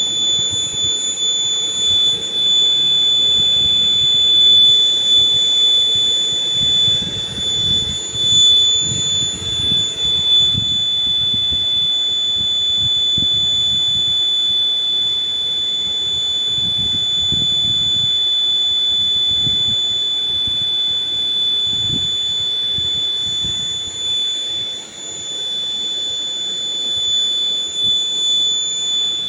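A small electronic buzzer sounding one continuous high-pitched tone that holds at a fixed pitch, over irregular low rumbling and handling noise.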